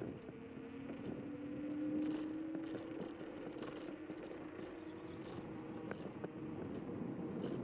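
Zero 10x electric scooter in motion: a steady motor whine that rises slightly in pitch and gets louder over the first couple of seconds as it speeds up, over a rushing haze of tyre and wind noise with occasional small clicks from bumps in the path.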